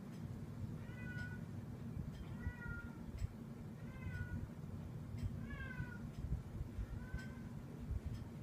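A 1966 Dominion steel-bladed box fan coasting down after being switched off, running faintly. Over it a short, pitched, meow-like squeak repeats about every second and a half, six times.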